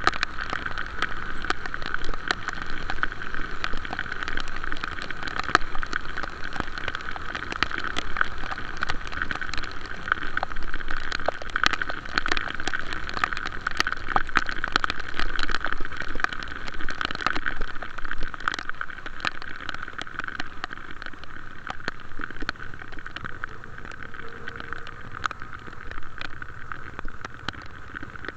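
Heavy rain: a dense, continuous patter of drops over a steady rush of noise, easing slightly near the end.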